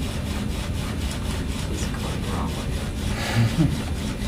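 RoboSapien toy robot's gear motors grinding as it walks, a steady rhythmic mechanical noise.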